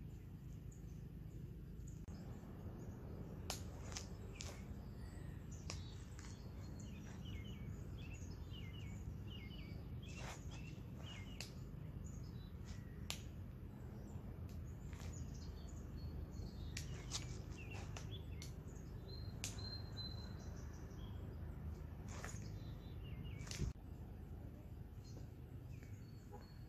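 Quiet outdoor ambience: small birds chirping here and there over a low, steady rumble, with scattered sharp clicks, the loudest about three-quarters of the way through.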